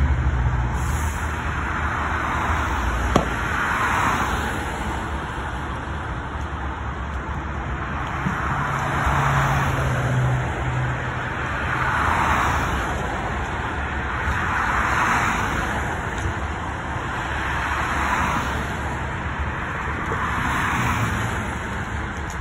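Highway traffic: a steady rush of tyre and engine noise that swells as vehicles pass every few seconds, with one sharp crack about three seconds in.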